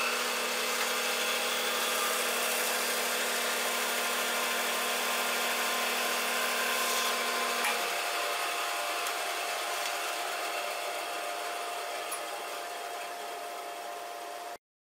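Bandsaw running and cutting into a block of wood: a steady machine hum with hiss and a few steady tones. A lower tone drops out about eight seconds in, the sound then slowly fades, and it cuts off suddenly near the end.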